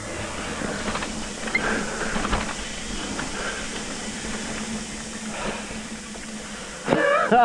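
Mountain bike rolling fast down a dirt trail: tyre noise and the bike rattling over the ground, with a steady low hum underneath. A rider gives a short shout near the end.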